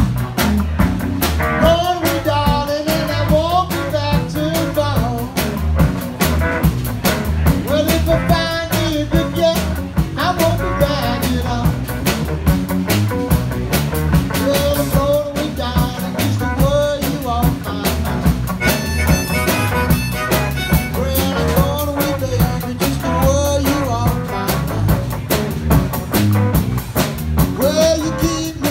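Live Chicago blues band playing: a harmonica carries a bending lead line through the vocal microphone over electric guitar, bass guitar and a drum kit keeping a steady beat.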